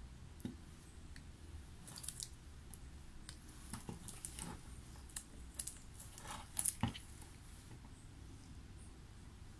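Scattered light clicks and scrapes of small hand-held waxing instruments working wax on a dental model for a bruxism splint, with a louder pair of clicks about seven seconds in.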